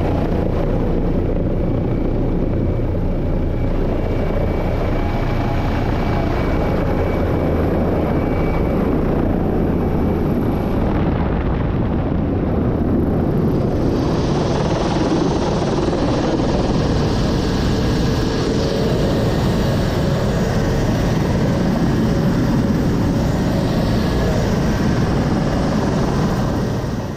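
Rescue helicopter's engines and rotor running steadily, heard from inside the cabin with the side door open.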